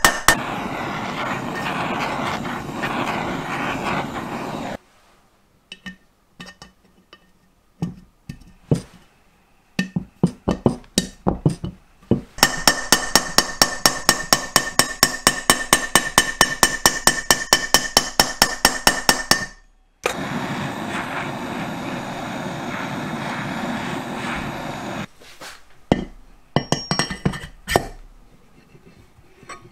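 Workshop metalwork sounds: stretches of steady rasping noise, scattered clicks and clinks, and a run of rapid, evenly spaced tapping at about five or six strikes a second in the middle.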